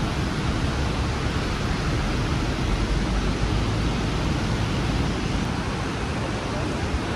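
Steady, even rushing noise with a strong low rumble.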